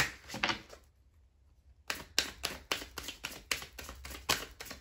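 A deck of tarot cards handled and then shuffled by hand: a short rustle, a brief pause, then a quick run of card clicks and slaps about four a second.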